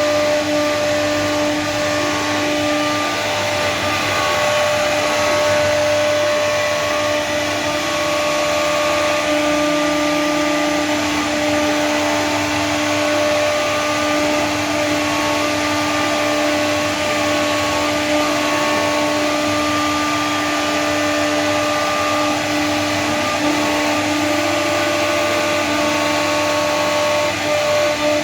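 CNC router spindle running with a steady high whine as it routes a design into PVC board.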